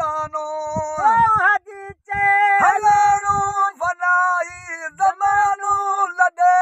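A man singing a Sindhi molood (devotional song) unaccompanied, in long held notes that waver in pitch.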